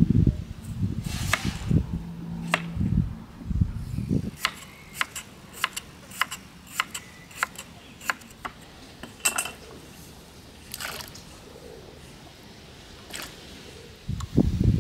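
Crinkle-cut knife slicing potatoes on a wooden cutting board: a few heavier thuds at first, then a run of sharp knife taps on the board, about two a second, with a few more taps later on.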